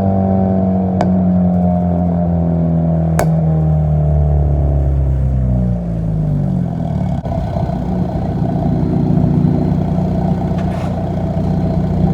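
Exhaust note of a 2000 Honda Civic EK hatchback through an eBay catback with homemade welded-in baffles, picked up right at the rear bumper. The engine runs at steady revs, then its pitch drops about six seconds in and settles lower, with a couple of sharp clicks in the first few seconds.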